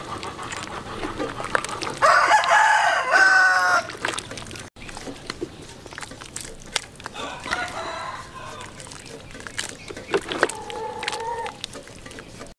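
A rooster crows loudly about two seconds in, one call lasting nearly two seconds; fainter crowing calls follow about seven and ten seconds in.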